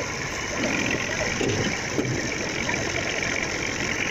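Massey Ferguson 240 tractor's three-cylinder diesel engine idling steadily.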